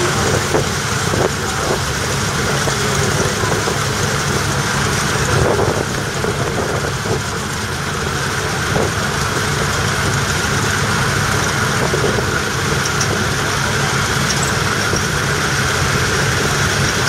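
Vintage Massey Ferguson combine harvester running steadily as it cuts standing wheat: an even engine drone with a steady high whine above it.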